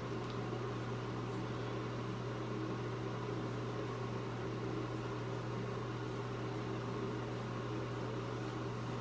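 A steady low hum with a faint even hiss: constant room background noise, like a running fan or appliance motor, with no distinct sounds standing out.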